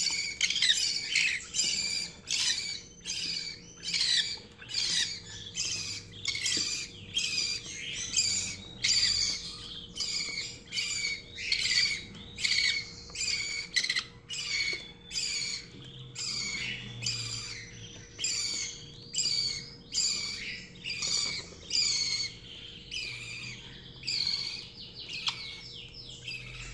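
Budgerigar chick making repeated short, high-pitched begging calls, about two a second, while it is syringe-fed hand-rearing formula.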